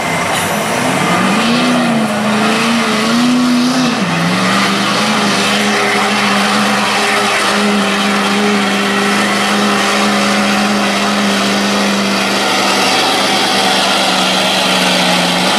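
Street diesel pickup truck's engine at full throttle pulling a weight sled. The revs swing up and down twice over the first few seconds, then hold at one steady pitch.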